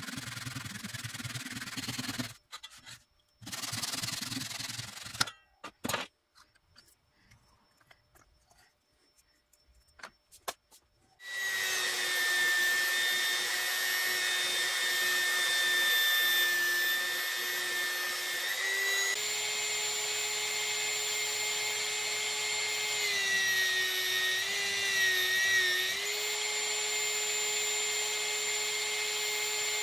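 A hand back saw cutting a wood block in two short spells of strokes, a few clicks, then an electric belt sander starting about 11 seconds in and running with a steady whine. The sander's pitch steps up a little partway through and wavers briefly as wood is sanded on the belt.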